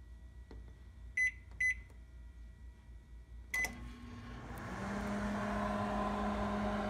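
LG microwave oven's keypad beeps twice as the time is set, then a click and a third beep as it is started, and the oven begins running: its hum builds over about a second and settles into a steady drone with a low tone, heating a bowl of vinegar and water.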